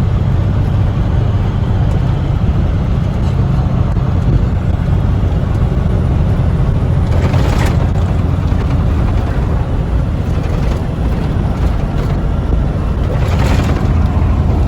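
Semi-truck driving on the road, heard from inside the cab: a steady low rumble of diesel engine and road noise. Two brief louder swells of hissing noise come about seven and thirteen seconds in.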